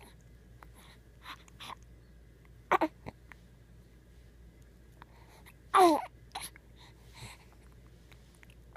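Newborn baby making short coos and grunts: a few brief sounds spread out, the loudest about six seconds in with a falling pitch.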